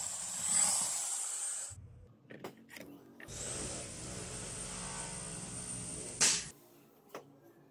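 Electric drill with a twist bit in steel, its motor whine fading away as the bit clears a plate, followed by a few light metallic clicks from handling the steel plate and vise. About halfway through a second steady whirr with a high whine sets in and ends with a sharp knock.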